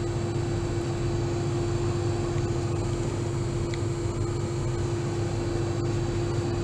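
Steady low rumble of a running car heard from inside the cabin, with a constant hum over it.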